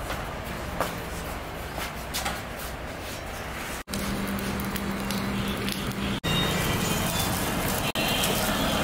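Background music over a steady noisy bed, broken by brief dropouts about four, six and eight seconds in.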